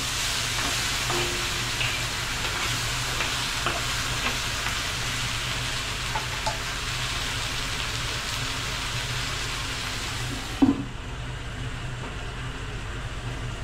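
Crab pieces with ginger and scallion sizzling as they are stir-fried in a hot wok, over a steady low hum. About ten and a half seconds in, a lid clanks onto the wok and the sizzling turns muffled and quieter: the crab is being covered to steam through.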